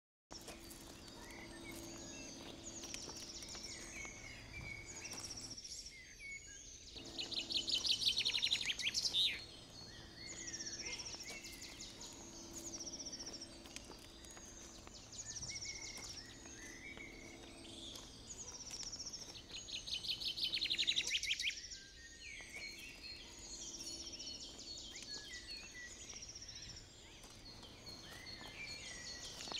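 Outdoor birdsong: many small birds chirping and trilling, with loud rapid trills twice, about eight and twenty seconds in, and again near the end. Under the birds runs a low steady hum that drops out briefly twice.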